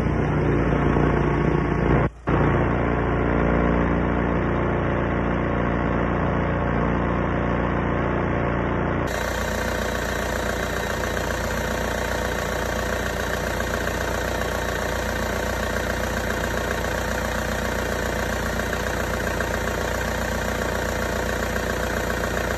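Case 580B backhoe's Perkins diesel engine running steadily at idle. There is a brief break about two seconds in. About nine seconds in the sound changes abruptly to a brighter, hissier engine-bay sound.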